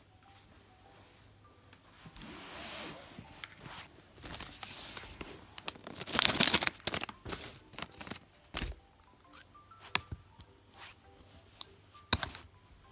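Packaging being torn and crinkled open by hand, with scattered clicks and taps of handling. The loudest tearing rip comes about six seconds in.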